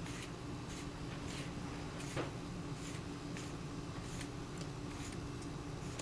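Faint, scattered clicks and scrapes of a Tippmann TPX paintball pistol being handled as its CO2 plug and barrel are taken out, over a steady low hum.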